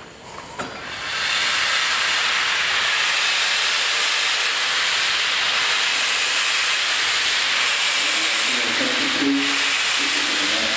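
Loud, steady steam hiss from the cylinder drain cocks of Peppercorn A1 Pacific steam locomotive 60163 'Tornado', starting about a second in.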